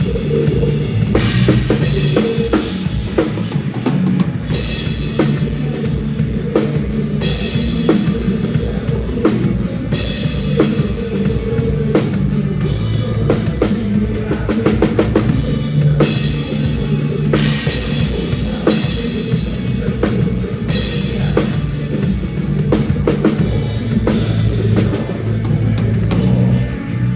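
A drum kit played with a band through a song: kick drum, snare and cymbals keeping a steady beat over sustained bass notes and other instruments.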